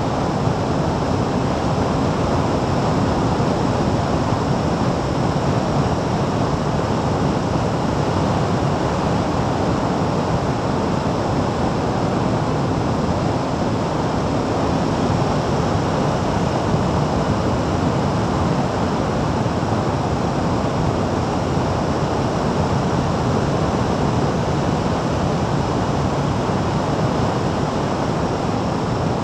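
Steady, loud wind rush over the microphone of a vehicle moving at road speed, with no distinct engine note standing out.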